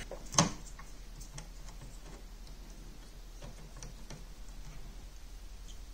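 Small clicks and light handling of wires and heat-shrink tubing on a circuit board, with one sharper click about half a second in, over a faint steady low hum.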